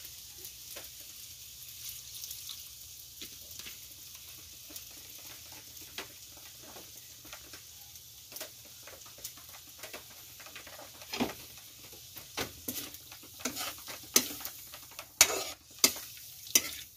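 Cuttlefish pieces sizzling in a metal wok over a charcoal fire, just after soy sauce and vinegar have gone in. From about two-thirds of the way through, a spatula stirs them, scraping and clinking against the wok in sharp knocks.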